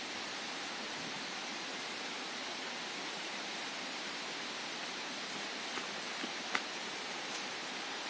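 Steady, even hiss, with a few faint clicks late on and one sharper click about six and a half seconds in.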